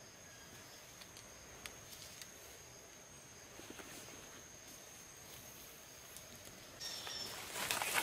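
A steady, high insect drone with faint small clicks and rustles as a bird is handled at a ground trap. Near the end it gives way to louder rustling and crackling of leaves and brush as he stands and moves through the undergrowth.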